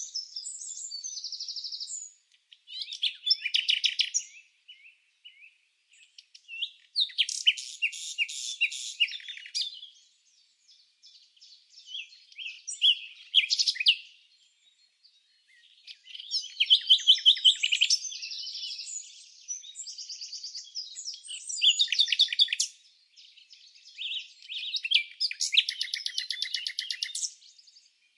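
Songbirds singing high-pitched phrases a few seconds long, with rapid trills, separated by short pauses.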